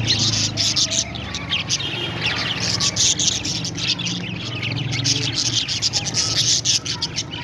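Parrots chirping, many short overlapping calls without a break, over a low steady hum.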